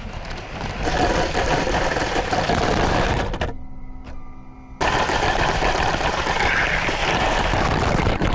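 Lego train's small electric motor and wheels rattling along plastic track, heard close up from a camera riding on the train. The rattle cuts off abruptly about three and a half seconds in, leaving a quieter steady hum for about a second, then comes back just as loud and cuts off sharply again at the end.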